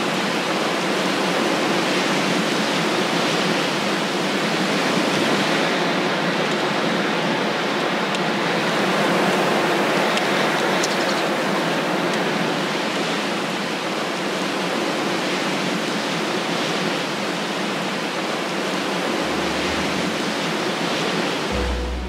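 Steady rushing of strong snowstorm wind, an even hiss with no distinct calls or knocks. A low rumble enters near the end.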